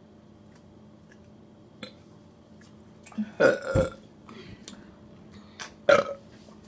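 A person burping deliberately after drinking soda: a long, loud burp about three and a half seconds in, then a short, sharp one near the end.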